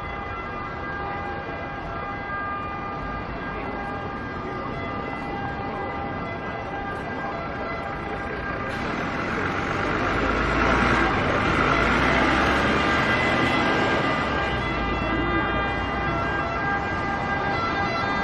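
City street traffic: a steady hum with several held tones, growing louder for a few seconds about ten seconds in as a vehicle passes.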